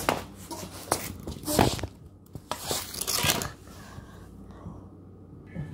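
Hockey stick blade scraping and knocking on a concrete floor, a quick run of rough strokes with one louder hit partway through, then quieter for the last couple of seconds.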